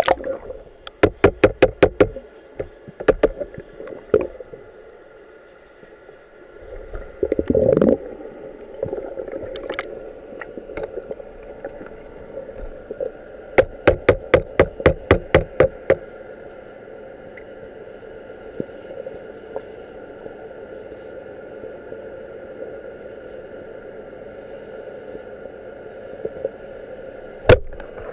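Underwater sound picked up by a diver's camera: two bursts of rapid sharp clicks, about four or five a second, plus a few single knocks, over a steady underwater hum with faint level tones.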